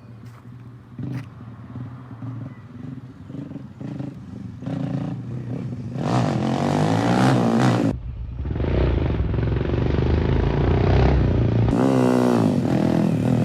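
Honda Grom's 181 cc big-bore single-cylinder engine running, getting louder over time, with blips of the throttle from about six to eight seconds in and a rising rev near the end.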